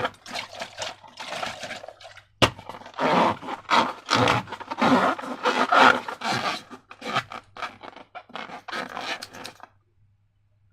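Hand-handling noise of slime-making: irregular scraping and rubbing strokes with a sharp click about two and a half seconds in, stopping near the end.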